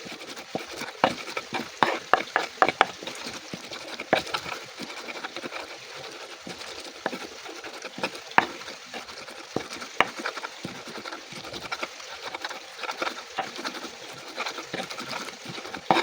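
Stirring food in a pan: irregular clinks and scrapes of a utensil against the pan over a steady hiss, busiest in the first few seconds.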